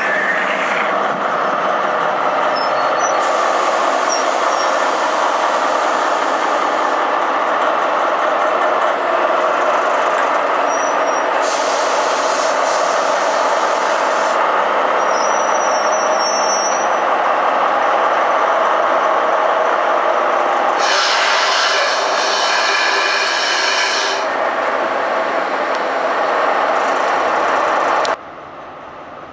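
SNCF BB 75300 diesel-electric locomotive running close by, its engine and cooling fans making a loud steady noise, with several stretches of hissing air laid over it. The sound cuts off suddenly near the end.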